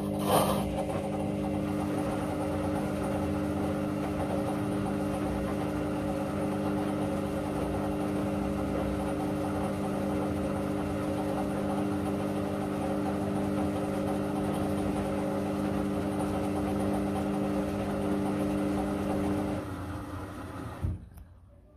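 Candy CS1292D3 front-loading washing machine turning its drum during the pre-wash: a steady hum from the belt-driven motor with several held tones, and the wet load tumbling. The drum stops near the end, with a short click.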